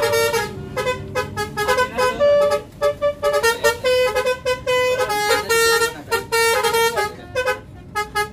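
Bus 'telolet' musical air horn of the Basuri type playing a tune in short, stepping notes, phrase after phrase with brief gaps between.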